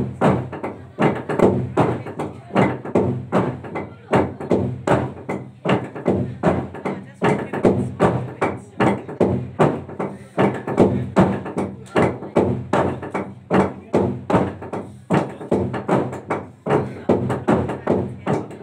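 Log drum, a long hollowed tree trunk, beaten in unison by a row of players with wooden sticks: wooden knocks in a steady, even rhythm of about three strokes a second.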